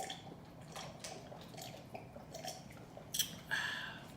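Close-up wet mouth sounds of someone chewing food: a run of small, moist smacking clicks, with a louder smack about three seconds in.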